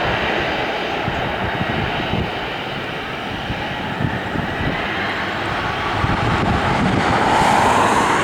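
Boeing 737-800 airliner landing: the steady rushing noise of its CFM56-7B jet engines, growing somewhat louder about seven seconds in.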